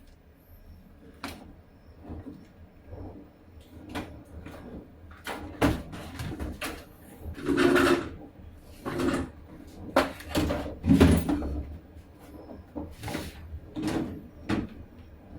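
Irregular knocks, clicks and clatters of hands working on the plastic body and parts of a Panasonic automatic washing machine. The loudest clusters come about halfway through.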